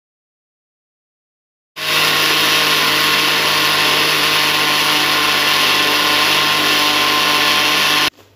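Electric mixer grinder running at full speed, grinding sun-dried corn kernels into flour: a loud, steady motor hum with grinding noise that starts suddenly about two seconds in and cuts off near the end.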